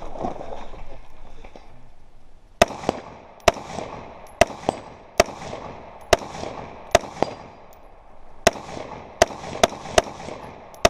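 A string of about ten rifle shots from a scoped rifle fired in quick succession, roughly one a second, starting about two and a half seconds in, each crack followed by a short echo.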